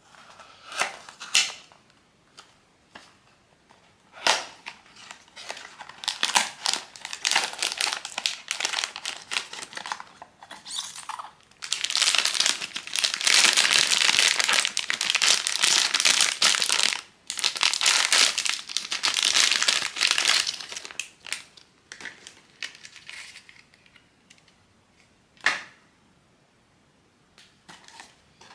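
Blind box plastic packaging being unwrapped, crinkling and tearing. It starts with scattered crinkles, then runs into two long stretches of dense, continuous rustling, and tapers off to a few crackles and one sharp click near the end.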